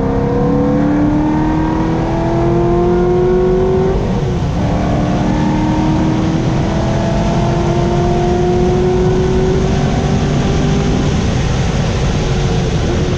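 Chevrolet Corvette C6 Z06's 7.0-litre LS7 V8 under hard acceleration on a hot lap, rising in pitch with an upshift about four seconds in, then a long climb in the next gear over road and wind noise.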